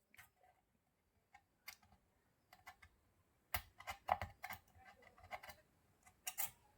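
Scattered light clicks and taps from tools and the amplifier circuit board being handled during soldering work, a few every second or so, with a short cluster near the middle and another near the end.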